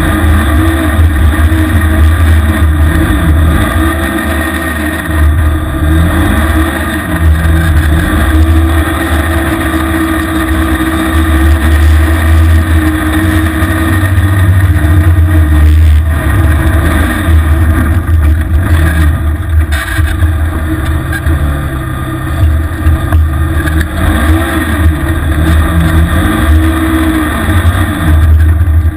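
Small vehicle engine running loud, its pitch rising and falling over and over as the throttle is worked, over a heavy low rumble.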